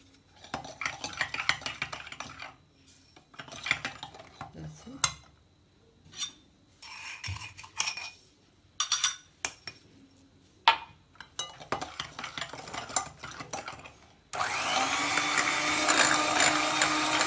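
Electric hand mixer switched on about three-quarters of the way in, then running steadily as it beats eggs and sugar in a glass bowl. Before that there is intermittent clinking and scraping of a glass and the bowl as sugar is added to the eggs.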